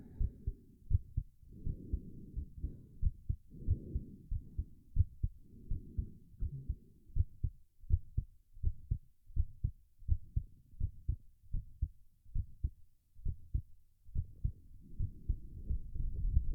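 A man's heart beating fast from the exertion of holding a plank, heard close up as a regular train of low thumps. Muffled heavy breathing swells in and out between the beats, dies away in the middle and returns near the end.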